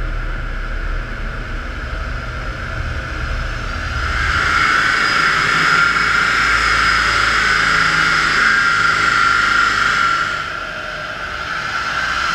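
BMW turbo-diesel cars running hard on a rolling-road dynamometer: steady engine, tyre and roller noise with a high whine over a low rumble. It grows louder about four seconds in, dips briefly near the end, then rises again.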